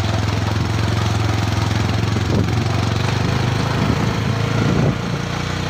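A vehicle's engine running at a steady, even speed while driving, heard from on board, with a constant rushing noise over it.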